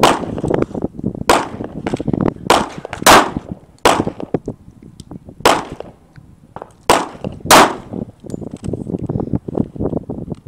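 About seven shots from a .45 ACP pistol, fired one at a time at an uneven pace, one to two seconds apart.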